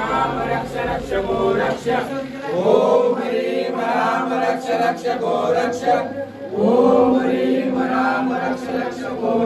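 Group of men chanting a devotional mantra together in long, drawn-out phrases during a Hindu puja.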